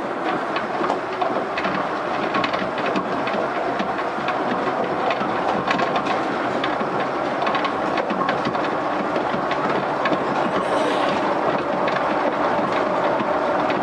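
Yukarigaoka Line 1000-series rubber-tyred people mover heard from inside an unmotored trailer car while running along the guideway. There is a steady rolling rumble with a faint steady whine and frequent sharp clicks and knocks.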